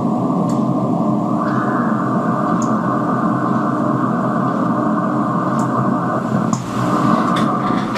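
Radio receiver tuned to about 500 kHz playing steady static hiss in a narrow, muffled band, with a few faint crackles from lightning discharges. About a second in the hiss turns slightly brighter as the receiver's bandwidth is widened.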